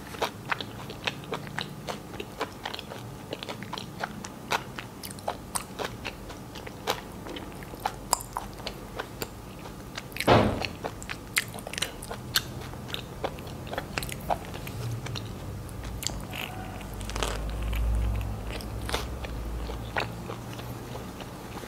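Close-miked chewing of a chicken mayonnaise sandwich on soft white bread with lettuce: a steady run of small wet clicks and crunches, with one louder bite about ten seconds in.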